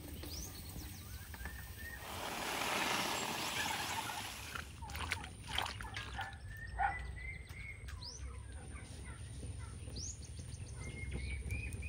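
Jackfruit strips tipped into a hot iron wok, a rush of sizzling and rustling for about two seconds, followed by a wooden spatula scraping and knocking against the wok as they are stirred. Poultry and other birds call now and then in the background.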